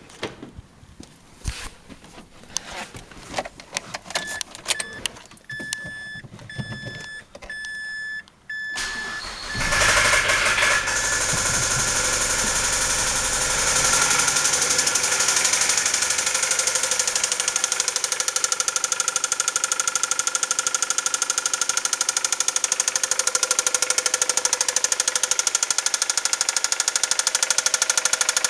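A car's warning chime beeps repeatedly, then the 2004 Mazda 3's 2.3-litre four-cylinder engine cranks, catches and runs with a loud, rapid, even knocking: rod knock from a failed connecting-rod bearing.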